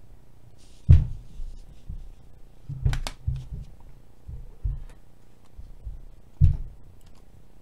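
Trading cards and a hard plastic card holder being handled and set down on a tabletop: a few dull thumps and taps, the strongest about a second in and near the end, with a sharp click about three seconds in.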